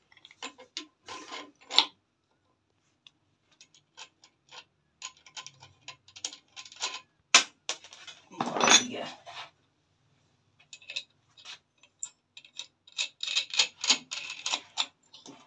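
Irregular small metallic clicks, clinks and scrapes of a cutting disc, washer and nut being handled and threaded by hand onto a bench grinder's spindle, with a longer, louder rustle of handling about eight and a half seconds in.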